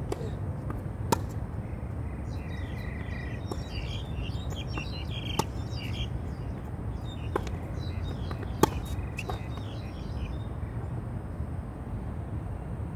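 Tennis rally on a hard court: a serve followed by sharp pops of the ball off the strings and off the court every second or two, the three loudest about a second in, midway and near nine seconds in, then the hitting stops. Birds chirp through the middle of the rally.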